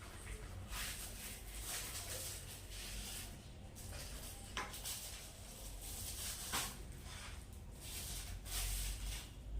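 Box and packaging being opened and unpacked by hand: repeated rustling and scraping, with two sharper clicks about halfway through and again two seconds later.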